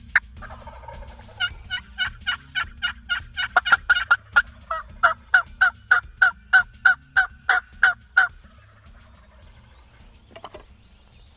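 Hen turkey yelping: a long, quick run of sharp, evenly spaced yelps, about three or four a second, that stops about eight seconds in.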